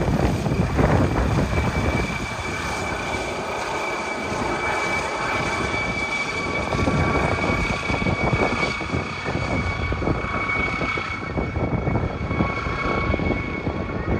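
MD900 Explorer helicopter's twin turboshaft engines and rotor running loud and steady, with a high turbine whine over a rapid low beating.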